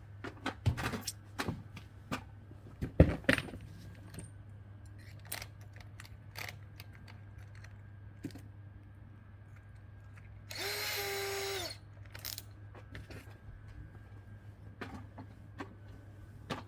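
Scattered knocks and clicks of handling, then a power drill spinning once for about a second.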